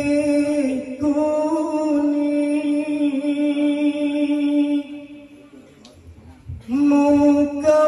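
Group of men chanting in unison, holding long drawn-out notes at a steady pitch. The chant breaks off about five seconds in and starts again after a pause of about a second and a half.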